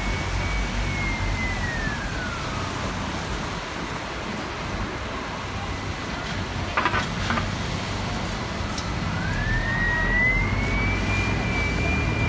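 Bus running in city traffic, with a steady low engine and road rumble. A single high whine falls away about two and a half seconds in and climbs back up from about nine seconds, and a few short clicks come just before halfway.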